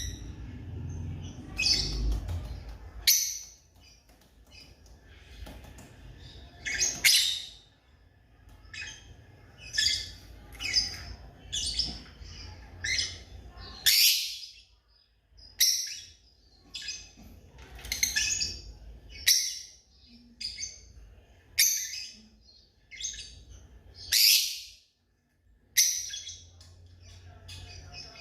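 Lovebird chirping: short, shrill calls repeated about every one to two seconds, some coming in quick pairs.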